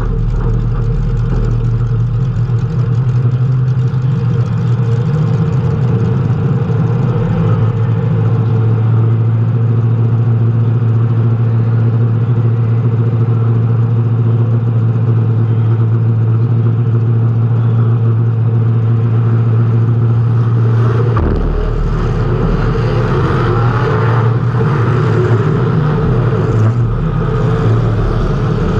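Race car engine heard from an on-car camera, running hard at a nearly constant pitch for a long stretch. About two-thirds of the way in the sound changes to a rougher, more uneven running with more low rumble and a wavering pitch.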